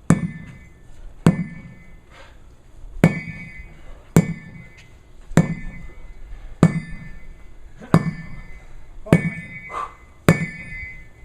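Sledgehammer striking a tire in a steady rhythm, nine heavy blows about one every 1.2 seconds. Each blow is a dull thud with a brief metallic ring.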